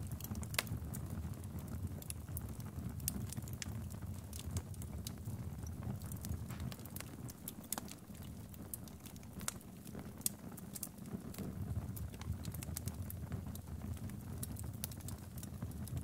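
Wood fire in a fireplace crackling, with many irregular sharp pops and snaps over a low steady rumble of the burning logs.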